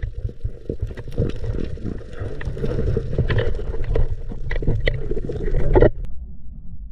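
Water sloshing and splashing with repeated knocks against a small boat's hull, plus wind on the microphone. About six seconds in, the higher sounds cut off abruptly, leaving only a muffled low rumble.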